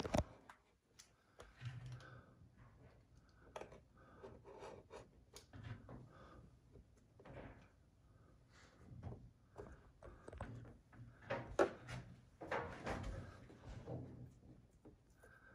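Wallpaper mural being trimmed by hand with a knife blade at an overlapping seam: faint scattered ticks and scrapes of the blade and rustles of the paper, with a louder papery rustle about twelve seconds in.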